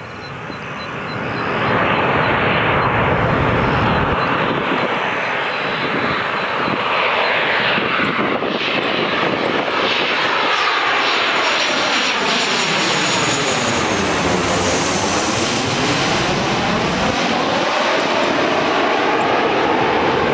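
Boeing 737-800's twin CFM56-7B turbofan engines at approach power, passing low overhead on landing approach. The jet noise swells over the first two seconds and stays loud. A high fan whine and a sweeping, phasing tone come in around the middle as the plane goes directly over.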